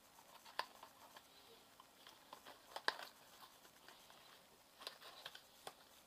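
Light, scattered clicks and taps of a small metal airsoft part being handled and fiddled with in the hands, the sharpest click about three seconds in.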